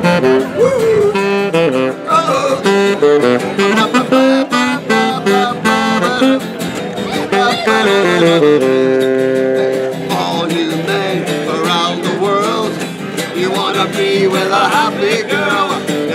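Live saxophone and guitar duo playing an upbeat tune: a saxophone melody over regularly strummed guitar chords, with one long held saxophone note about halfway through.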